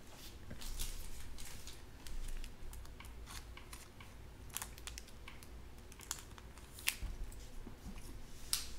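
Trading cards being handled: irregular light clicks, snaps and rustles of card stock sliding and tapping against other cards and the table.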